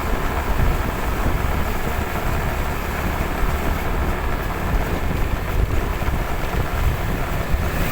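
A vehicle driving steadily along a road: constant engine and road noise, with wind buffeting the microphone.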